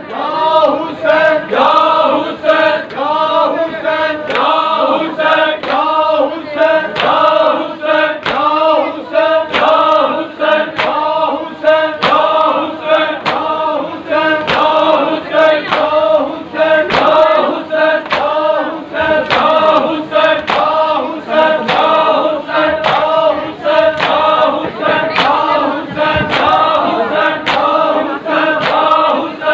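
Many men's voices chanting a Muharram noha in unison, with sharp slaps of hands beating on bare chests (matam) keeping time with the chant.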